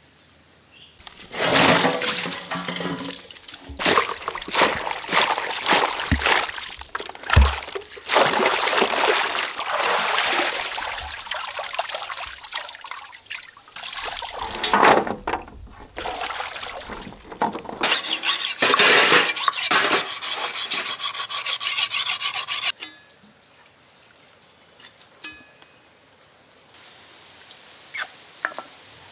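Water pouring and splashing in bursts of several seconds, with a run of quick, even scraping strokes about two-thirds of the way through.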